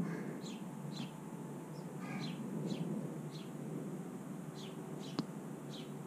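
A small songbird chirping over and over: short, high, downward-sliding chirps about once or twice a second, over a steady low background rumble. A single sharp tap about five seconds in.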